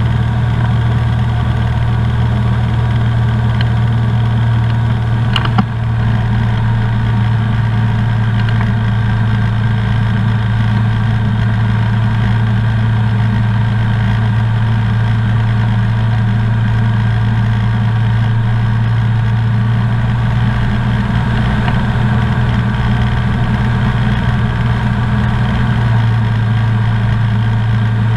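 Comco Ikarus C42B ultralight's engine and propeller droning steadily in flight, heard from inside the cockpit. One sharp click about five seconds in.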